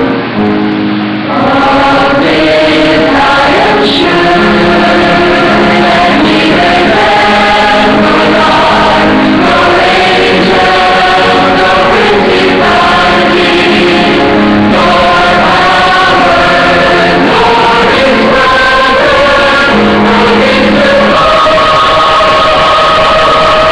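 Large mixed choir of men and women singing a gospel hymn in held chords, rising to full voice about a second in.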